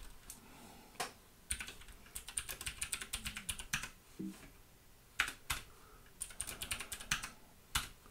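Typing on a computer keyboard: short runs of quick keystrokes separated by pauses, as shell commands are typed and entered.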